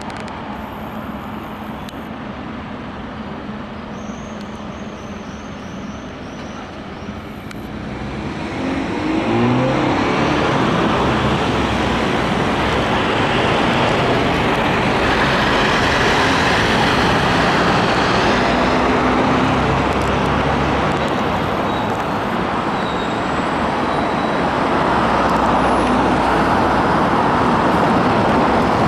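City road traffic: cars, vans, buses and a truck driving past. It is lighter for the first several seconds, then louder from about eight seconds in as vehicles pass close, with an engine note rising in pitch as one accelerates.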